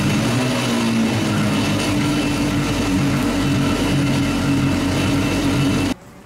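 1998 Sea-Doo GS 720's two-stroke twin engine idling steadily during a freshwater flush, with water spraying and splashing from the hull. The engine sound cuts off abruptly about six seconds in, leaving faint trickling water.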